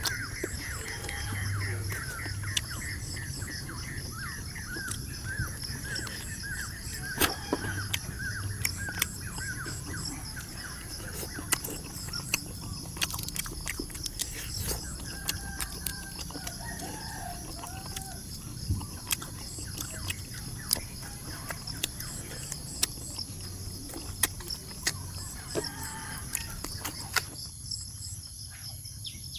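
Farmyard ambience: chickens clucking and a rooster crowing over a steady, high insect drone, with scattered sharp clicks. Short calls repeat several times a second through the first nine seconds, and a wavering call comes about halfway through.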